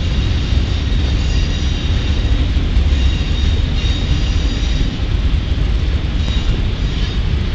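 Freight train of rock-carrying hopper cars rolling past: a steady, loud low rumble of steel wheels on rail, with faint high wheel squeals now and then.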